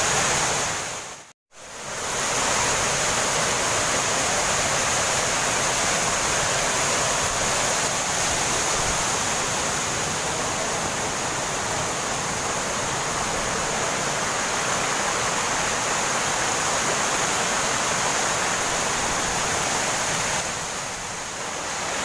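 Rushing water of a rocky mountain stream at a waterfall, a steady full hiss of water pouring over rock. It cuts out briefly about a second in, then comes back.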